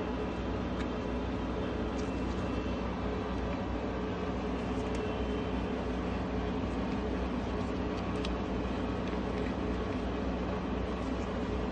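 Steady mechanical hum and air rush of a running fan, with a few faint light clicks from the clear plastic mouse restrainer being handled.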